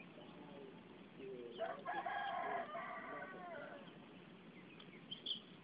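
A rooster crows once, about a second and a half in: a single drawn-out call of over two seconds that rises at the start and falls away at the end. Short high bird chirps follow near the end.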